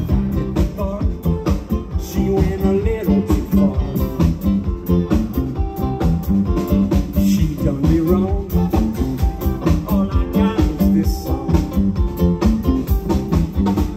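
Live rock band playing an instrumental jam, with a steady drum beat under a guitar line.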